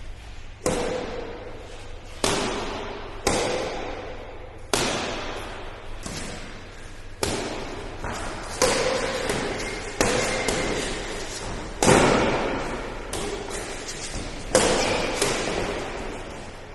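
Badminton rally: rackets hitting the shuttlecock, about a dozen sharp hits roughly one every second and a half, each echoing in a large indoor hall.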